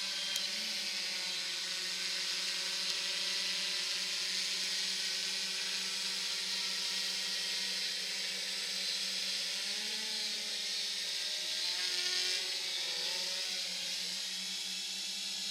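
Two electric multirotor drones hovering, their motors and propellers giving a steady buzzing whine of several stacked tones over a hiss. About ten seconds in, the pitches waver up and down as the craft change throttle.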